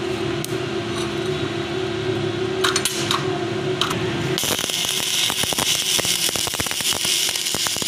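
A steady hum with a few light hammer taps on a bundle of steel bars, then, from about four seconds in, the dense crackle of an electric welding arc.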